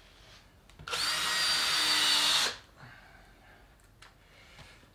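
Cordless drill-driver driving a screw through plywood into an MDF board: a steady motor whine lasting about a second and a half, starting about a second in, then stopping.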